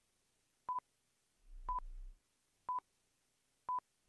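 Quiz countdown timer beeping once a second: four short beeps, all of the same pitch.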